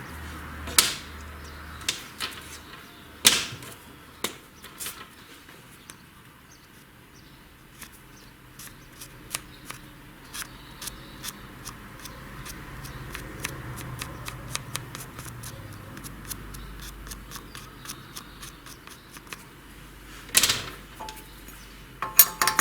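Valve-seat cutter taking a light cut on a cylinder-head valve seat: a run of rapid light ticks and scraping clicks, with a few sharper knocks and a faint low hum at times.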